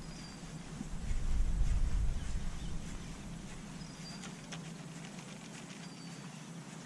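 A fishing reel being wound during a slow lure retrieve, with faint light ticks and clicks, over a steady low hum. A low rumble is loudest in the first couple of seconds, then fades.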